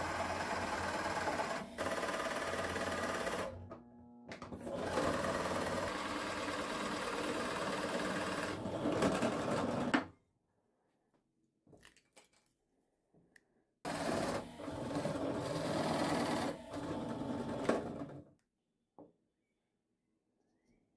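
Bench drill press boring a 50 mm hole in wood with a Forstner bit: the motor runs steadily with the bit cutting for about ten seconds, dipping briefly near four seconds, then stops. After a few quiet seconds with faint clicks, it runs again for about four seconds.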